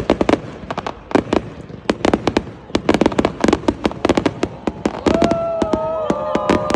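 New Year's Eve fireworks show, with a rapid, irregular run of sharp bangs and pops several times a second. From about five seconds in, several long steady tones at different pitches sound together over the bangs.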